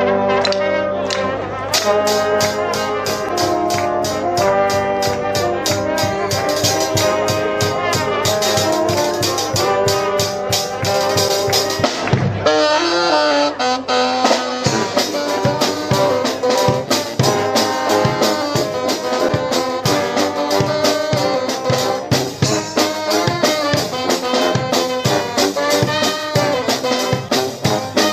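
Live brass street band playing: trombones and trumpets over a fast, steady drum beat, with a short break about twelve seconds in before the tune carries on.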